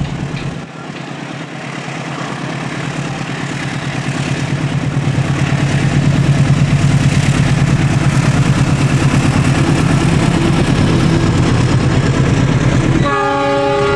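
Diesel-electric locomotive hauling a passenger train past at close range, its deep engine drone growing louder as it approaches and then holding steady. About a second before the end, the locomotive's horn starts to sound.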